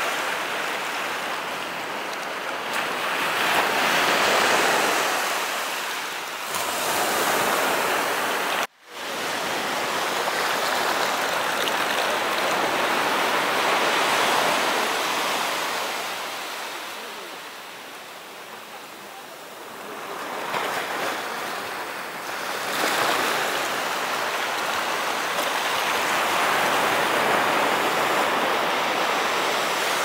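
Sea surf breaking and washing up a sandy beach, its rush swelling and fading every several seconds. The sound cuts out for a moment about nine seconds in.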